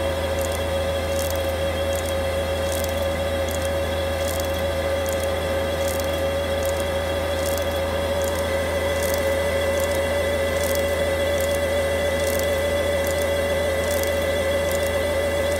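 1994 Toyo crystal pleating machine running steadily: a constant motor hum with a clear mid-pitched tone, and a light regular tick about once a second from the pleating mechanism.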